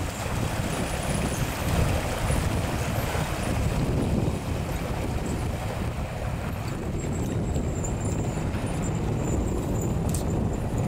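Fishing trawler's diesel engine running as the boat moves off under power, its propeller churning the water at the stern, with wind buffeting the microphone.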